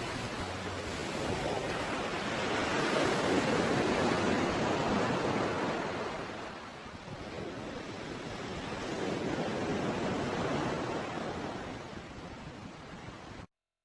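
Sea waves washing on a shore, swelling twice and falling back, then cutting off suddenly near the end.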